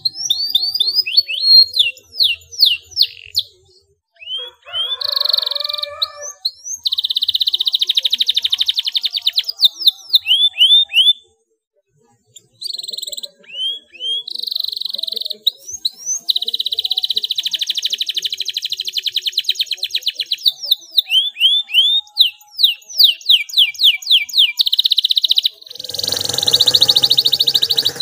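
Domestic canary in full song, trading runs of quick downward-swept whistled notes with long, fast rolling trills. The song breaks off briefly a little over a third of the way through.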